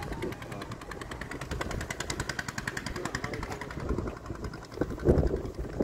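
A small engine running with a fast, even beat.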